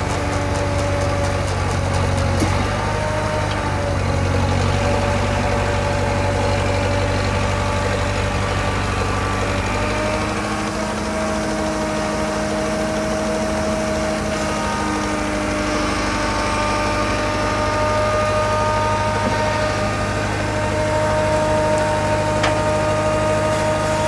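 Vintage cable-operated crawler power shovel's engine running steadily while the machine digs and raises its dipper, with a whining tone from its drive and winch gearing that changes pitch a few times as the dipper is worked.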